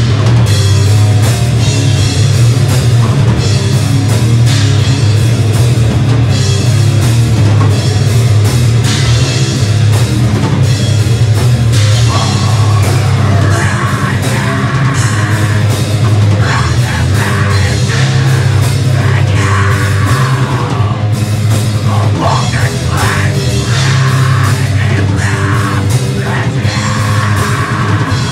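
Live heavy metal band playing loud, with electric guitar and bass over a drum kit, and vocals joining in about twelve seconds in.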